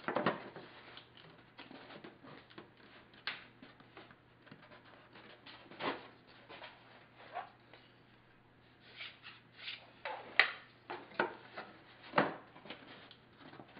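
Scattered light clicks, taps and rubbing of a thin western red cedar strip being worked by hand into a tapered gap between deck strips, test-fitting it, with a faint steady low hum underneath. The sharpest taps come about ten and twelve seconds in.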